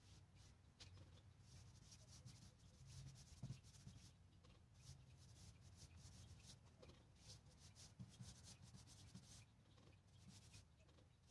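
Faint, quick, irregular rubbing strokes of stain being worked onto raw wood.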